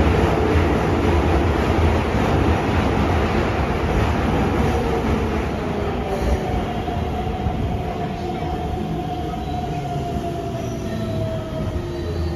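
Keikyu 600 series train's Mitsubishi GTO-VVVF inverter and traction motors heard from inside the car, with rumble of the wheels on the rail in a tunnel. A faint whining tone slowly falls in pitch and the overall sound gradually gets quieter as the train slows for a station.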